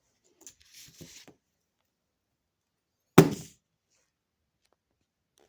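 A single loud thump about three seconds in, dying away quickly, after a second or so of faint rustling and light knocks.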